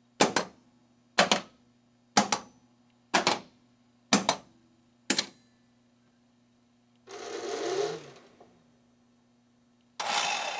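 Solenoids in a Williams Whirlwind pinball machine firing in turn, a sharp double clack about once a second, six times, over a steady low electrical hum; the coils are working again now that the power supply's relay has been replaced. A short rushing noise follows about seven seconds in, and another near the end.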